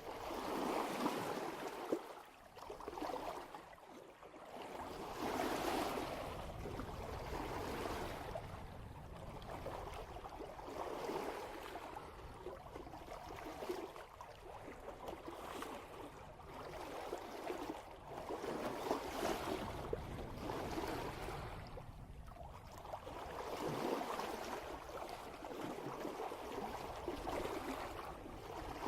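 Water rushing and splashing along a sailboat's hull as it sails before about 6 knots of following wind. The sound swells and eases every few seconds.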